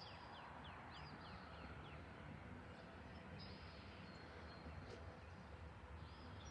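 Faint outdoor ambience: small birds chirping, a quick run of short curved chirps in the first couple of seconds and a few high whistled notes later, over a faint low rumble.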